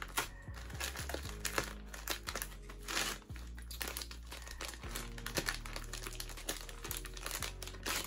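Thin plastic courier satchel crinkling and crackling in quick irregular bursts as it is pulled and torn open by hand, over background music.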